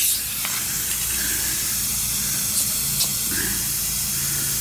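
Compressed air hissing steadily at a car tire's valve stem during inflation and a pressure check, with a few light clicks.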